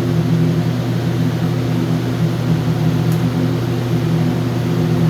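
Steady machine hum with several low, even tones and a hiss above them, unchanging throughout.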